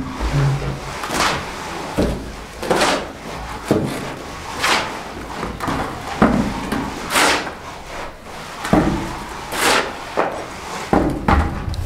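A shovel scraping across a concrete floor as mortar mix is scooped and tipped into a metal bucket, one scrape about every two seconds, with dull thuds between.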